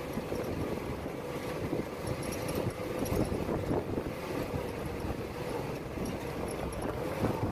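1948 Willys CJ2A Jeep's four-cylinder flathead engine running while driving on a dirt trail, with a steady whine and frequent rattling.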